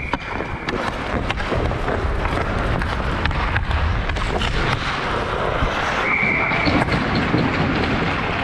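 Ice skates scraping and carving the ice and a hockey stick tapping the puck as a player skates in on a penalty shot, with wind rumbling on the helmet-mounted camera. A referee's whistle blows once, briefly, a little past halfway.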